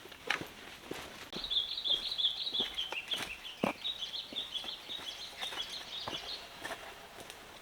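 A bird sings a rapid, chattering trill of high notes that starts about a second in and runs for about five seconds, dipping slightly in pitch midway. Scattered short crunches sound alongside it.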